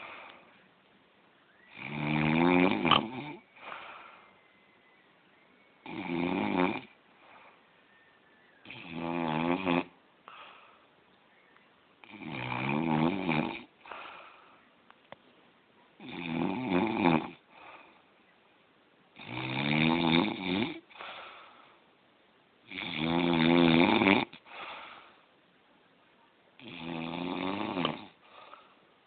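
A man snoring in his sleep, like a piglet: a loud, pitched snore about every three and a half seconds, eight in all, with near silence between them.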